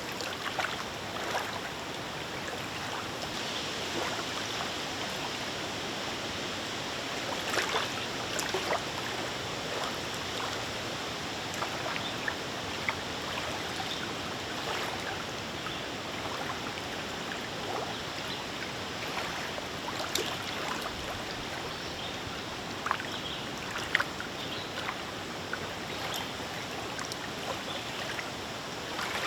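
Small wind-driven lake waves lapping, a steady wash of water broken by frequent small irregular slaps and splashes.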